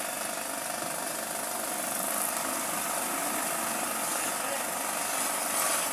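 A motor running steadily, an even hum and hiss with no change.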